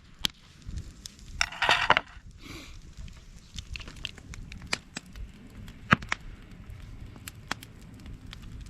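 Scattered sharp clicks and crackles, with a short crunching rustle about a second and a half in.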